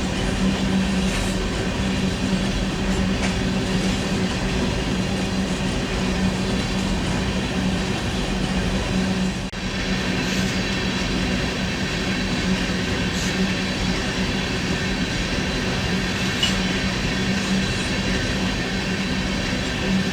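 Union Pacific rock train's freight cars rolling past steadily, a continuous rumble of wheels on rail with a constant hum, briefly dropping about halfway through.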